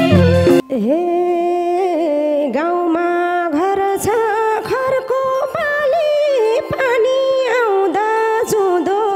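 Live Nepali dohori music: the drums drop out less than a second in, leaving a single ornamented melody line that slides between notes, with a few held accompanying tones under it.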